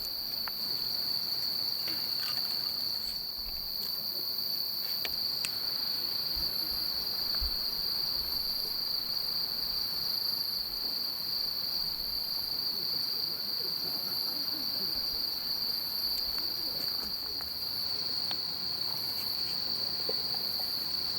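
Night insects, likely crickets, chirring in a steady, continuous high-pitched chorus, with a few faint scattered crackles.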